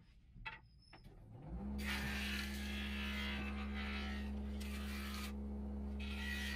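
A few light clicks, then an electric wood lathe motor starts with a rising whine about a second and a half in and settles into a steady hum. A hissing scrape joins it, likely a turning chisel cutting the spinning teak, breaking off briefly near the end and starting again.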